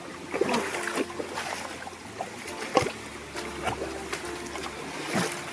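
Running water of a stream trickling, with a few sharp knocks about half a second, one second, nearly three seconds and five seconds in.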